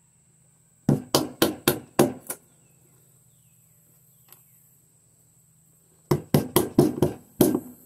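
Wooden baton striking the spine of a fixed-blade knife, driving it through small pieces of wood to split kindling. A quick run of about six knocks comes about a second in, then after a pause a second run of about six near the end, roughly four blows a second.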